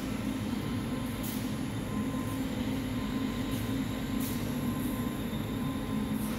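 Steady machinery hum from a powder coating line, with a faint steady whine and several short, high hisses.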